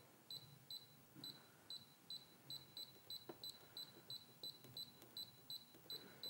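Brother Innov-is sewing machine's control panel giving a short, high beep with each button press, about three beeps a second in a steady run, as the upper thread tension is stepped down.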